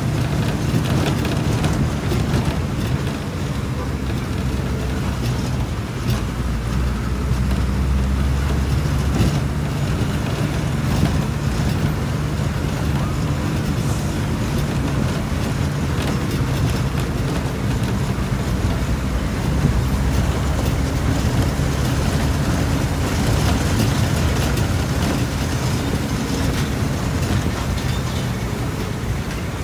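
Steady engine drone and road noise of a moving motor vehicle, with a low hum that swells slightly for a few seconds early on and then settles.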